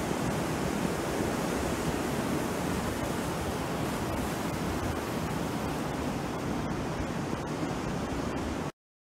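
Sea surf breaking and washing up a beach: a steady rushing wash that cuts off abruptly near the end.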